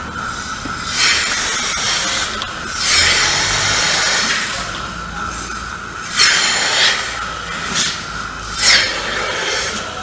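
Milking machine running, with a steady high tone from the vacuum system and repeated hissing rushes of air as the teat cups are offered up to a cow's udder and suck in air before they seal onto the teats.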